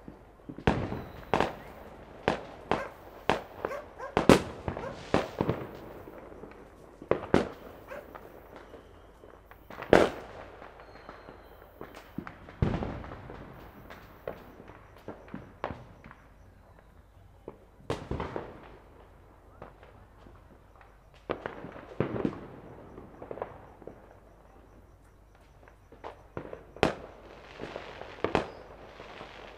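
Fireworks and firecrackers going off at irregular intervals: a string of sharp bangs of varying loudness, close-packed through the first ten seconds, then sparser with a few loud single reports.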